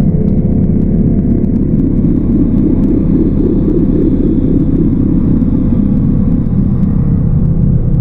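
Loud, steady low rumbling drone of dark ambient horror music, with held low tones that do not change.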